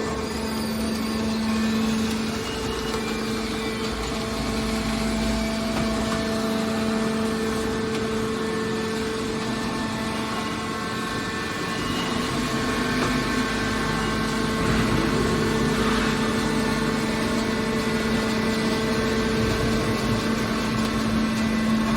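Hydraulic scrap metal baler running: a steady machine hum with a constant low tone from its power unit.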